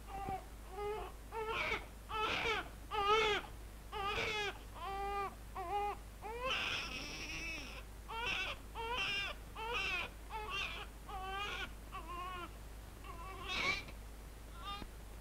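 Infant crying in a run of short wails, about one a second, each bending in pitch, with a longer cry about seven seconds in.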